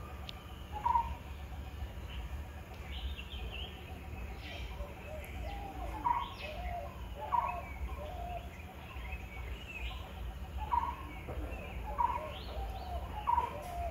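Birds calling: short, clear notes repeat at irregular intervals, the loudest about a second in, with higher chirps between them, over a steady low rumble.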